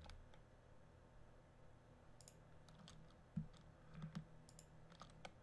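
Faint, scattered clicks of a computer mouse and keyboard, a few single clicks and a quick cluster near the end, over a low steady hum.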